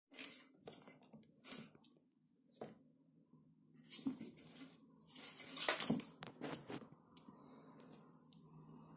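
A kitten playing at a folding table's wooden legs: its claws and paws scrabble, scrape and tap against the legs and the wood floor in irregular short bursts, sparse at first, then busiest between about four and seven seconds in.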